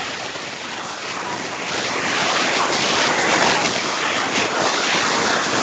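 A loud, steady rush of static-like noise on the audio line that cuts in suddenly in place of the voice and grows a little louder after about two seconds, like wind blowing on a microphone.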